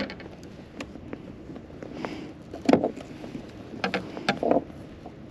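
Irregular knocks and clatter of gear being handled aboard a fishing kayak, the loudest knock about two and a half seconds in, with a few more a second later.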